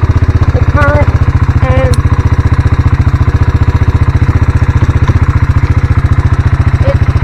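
An engine idling steadily, a fast, even low throb that does not change.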